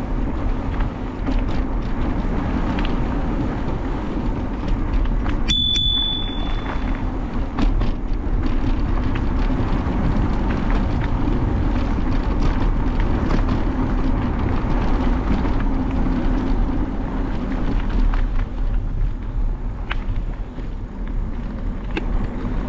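Steady wind rush on the microphone and tyre rumble from an e-bike rolling along a forest track. About five seconds in there is a short high ping.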